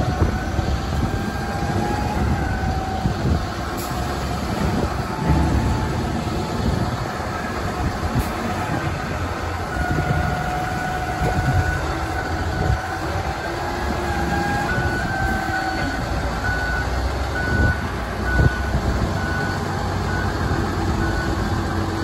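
Large Toyota 230 diesel forklift's engine running steadily as it lifts and moves a loaded flat-rack, with a reversing alarm beeping evenly through the second half.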